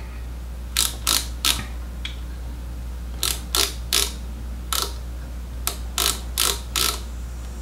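Digital micrometer's ratchet stop clicking in short runs, about a dozen sharp clicks in all, as the spindle is closed onto a nickel silver ferrule slide to measure it.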